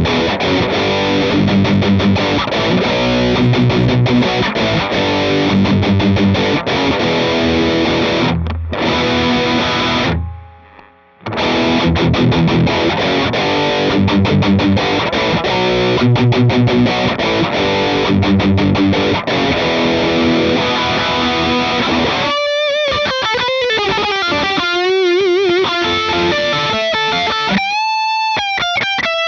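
Electric guitar played through overdrive pedals, a Fulltone OCD with a boost in front, giving distorted, rhythmic chord riffs. The playing stops for about a second some ten seconds in, then resumes. From about two-thirds of the way through, it turns to single sustained lead notes with vibrato.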